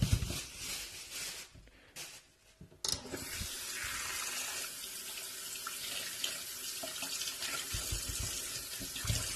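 Kitchen tap turned on about three seconds in, water running steadily into a sink as lemons are rinsed under it.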